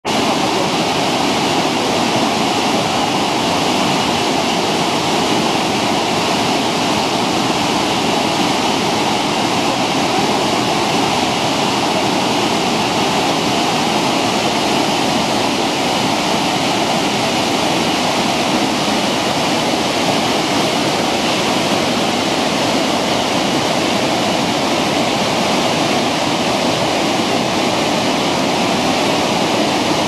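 Sogi Falls, a broad waterfall, and the white-water rapids below it rushing over boulders: a loud, steady, unbroken wash of water.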